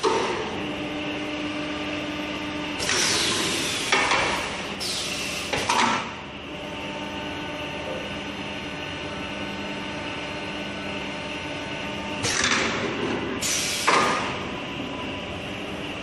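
Automatic storage-beam welding machine working through its cycle: a steady machine hum with several short, loud hissing bursts from its clamps and cylinders, a cluster of them about three to six seconds in and another about twelve to fourteen seconds in.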